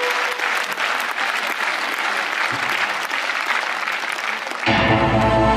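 Audience applauding for about four and a half seconds. Near the end, a sustained electronic synthesizer chord with a deep bass cuts in suddenly as the band begins a number.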